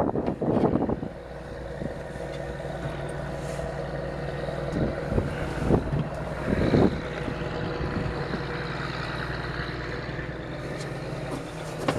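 A fishing boat's engine idling steadily, a low even hum, with a few short knocks about halfway through.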